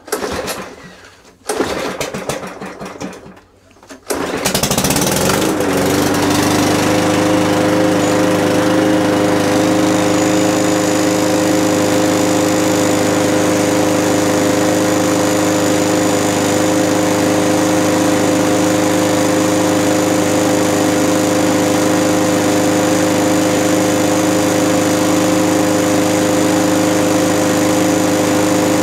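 Mountfield 414 lawnmower's small petrol engine, started about four seconds in after a couple of short noisy attempts, then running at a steady speed. It holds the speed without hunting, running as it should.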